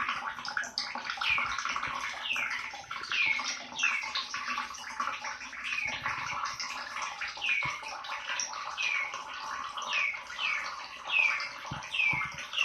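Short high calls, each falling in pitch, repeating about once or twice a second over a steady rushing noise like running water.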